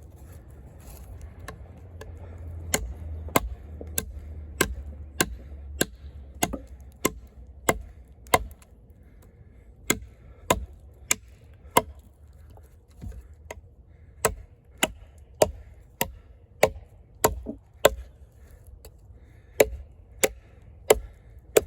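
A heavy fixed-blade camp knife with a thick AUS-10 steel blade chopping into a wood log, a steady run of sharp strikes roughly every half second.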